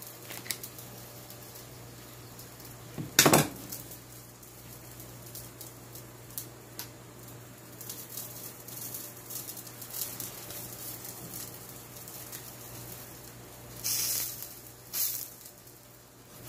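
A spatula clanks against a cast-iron skillet, loudly once about three seconds in, with scattered light clicks after. Near the end it scrapes twice across the pan as it slides under the flatbread. A steady low hum runs underneath.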